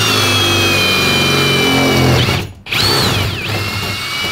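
Cordless drill boring a pilot hole through the van's sheet-metal side panel. The motor whine sags slowly in pitch as the bit bites, stops a little past halfway, then spins up again and keeps drilling.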